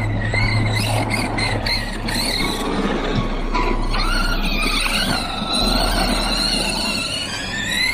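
Electric RC car motor whining, its pitch rising and falling with the throttle, over a noisy rush of tyres and drivetrain. The whine climbs near the end.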